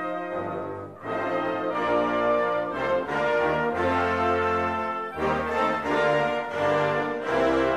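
Outro music: sustained chords held and changing every second or so.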